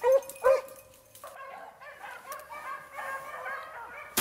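Beagles baying: a couple of loud, close bays in the first half second, then a pack of hounds baying further off with several voices overlapping. A single sharp gunshot cracks right at the end.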